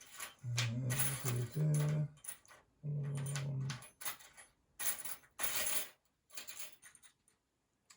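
Small metal construction-set parts clinking and rattling as they are picked through and handled, in several short rattles, the longest about five seconds in. In the first four seconds a man's voice hums in three short, low, steady tones.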